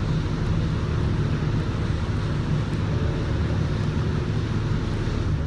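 Paint spray booth ventilation running: a steady low drone with a rush of moving air, even and unbroken.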